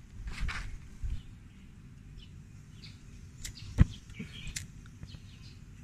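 Wind rumbling on the microphone, with birds chirping now and then in the background. A sharp knock a little under four seconds in is the loudest sound, with a couple of fainter clicks around it.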